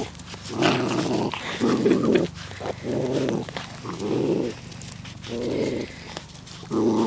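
Puppies play-growling while wrestling and mouthing a hand: a run of short, rough growls, about one a second.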